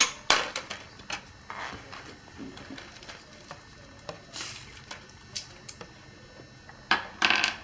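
Clicks, knocks and rustling from a wire budgie cage and its plastic accessories being handled and fitted, with the loudest knocks just after the start and near the end.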